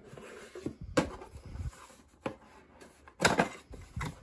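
Cardboard packaging being handled: a light sliding rub, a sharp knock about a second in, and a louder cluster of knocks and scrapes near the end as a small cardboard box is lifted out and its flap opened.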